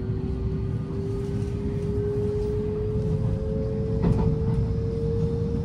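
Inside a JR West 223-series electric train on the move: a steady low rumble with a single motor whine rising slowly in pitch as the train gains speed.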